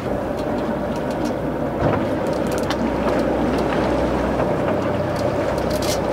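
Boat engine running steadily with wind and water noise, and a few short clicks, the loudest about two seconds in.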